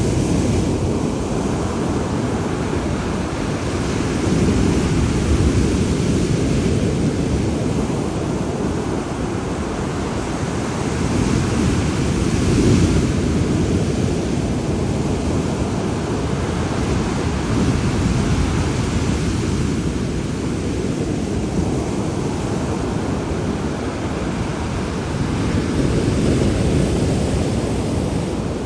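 Heavy storm surf, waves breaking and rushing in a continuous loud wash that swells and eases every several seconds, with wind buffeting the microphone.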